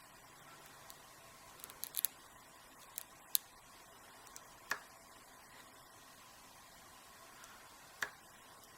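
Faint, irregular clicks and light metallic ticks of a lock pick working the pins inside a Master 6835 aluminum padlock's core during single-pin picking, with a few sharper clicks a couple of seconds in and one near the end.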